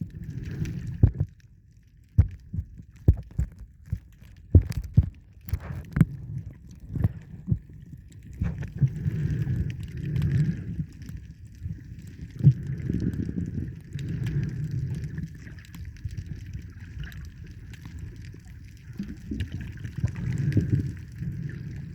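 Water sloshing and gurgling, muffled and low, with scattered sharp clicks and knocks, most of them in the first third; from about nine seconds in a faint steady hiss runs over it.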